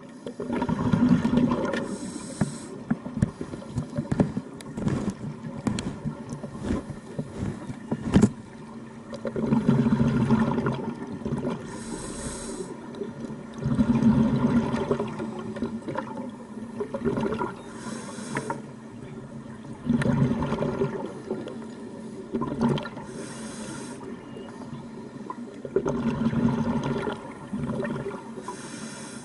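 Scuba diver breathing through a regulator underwater: a short hiss on each inhale and a gurgling rush of exhaled bubbles, a breath every five or six seconds, with scattered sharp clicks.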